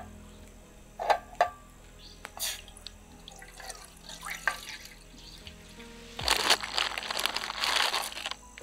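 A few light metal clinks of an aluminium camping pot, then water poured into the pot. From about six seconds in there is a loud, crackly crinkling of the plastic instant-noodle packet as the noodle block is pulled out. Faint background music runs underneath.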